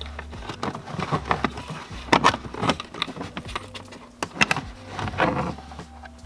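Hands working with wiring connectors and plastic trim under a car dashboard: irregular clicks, taps and rustling as an electrical plug is fitted back into its socket.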